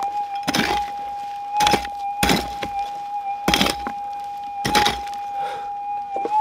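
A digging pick chopping into a tree root and gravel in a dig hole, about five sharp strikes roughly a second apart, over a metal detector's steady electronic tone.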